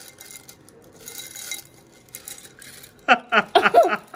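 Plastic press-on nail tips clattering and rustling against each other and the glass as a hand stirs and pushes them down into a glass jar. About three seconds in, a woman laughs in short bursts, louder than the clatter.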